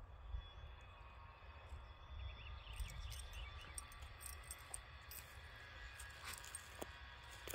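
Soft crackling rustles of dry mown grass clippings as a Great Pyrenees rolls on its back in them, starting about three seconds in, over a low wind rumble on the microphone. Faint high chirping about two to three seconds in.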